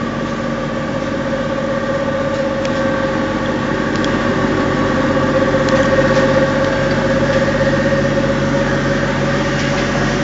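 Sawdust charcoal briquette machines running: a steady mechanical drone with a hum at several held pitches, swelling slightly midway and then settling.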